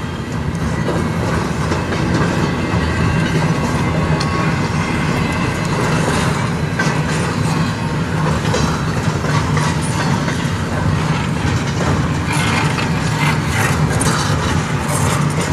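Freight cars of a CN intermodal train rolling slowly past, wheels clicking steadily over the rail joints, heard from inside a parked van.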